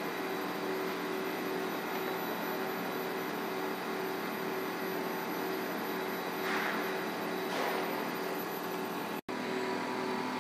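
Steady mechanical whir and hum, with a few held tones, of a paper web transport running a roll of paper through its rollers past an inkjet coder that prints continuously on the moving web. The sound drops out for an instant near the end, then goes on.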